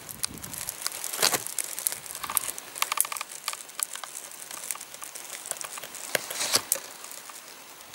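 Footsteps through dry grass and reeds: irregular dry crackling and crunching, with louder crunches about a second in and again about six seconds in.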